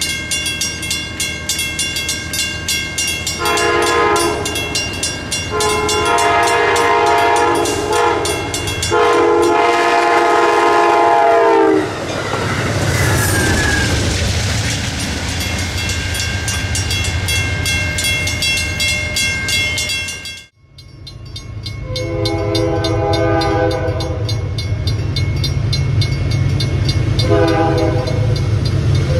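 Diesel locomotive horns sounding several long chord blasts. The last blast in the first half bends down in pitch as the train passes. After a break, a locomotive horn blows two long blasts for a grade crossing over a loud engine rumble, with the crossing bells ringing.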